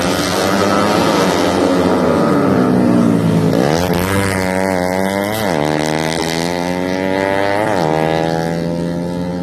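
Tuned 125 cc four-stroke underbone race motorcycles running at high revs, several engines overlapping at first. Then one engine stands out, its revs jumping up sharply three times and holding steady in between.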